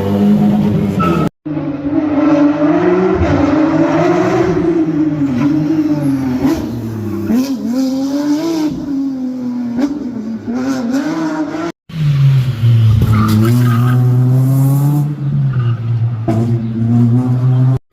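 Race car engine held at high, wavering revs with tyres squealing, as in a burnout or drift display. The sound cuts off abruptly twice.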